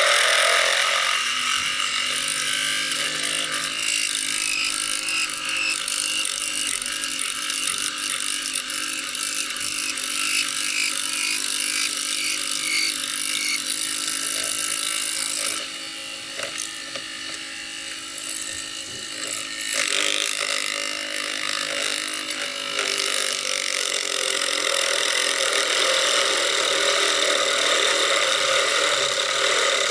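Tyre Razor slot-car tyre truing machine running steadily, its motor spinning a mini lathe while the cutting blade shaves plastic off a slot car wheel. For a few seconds past the middle it goes quieter before picking up again.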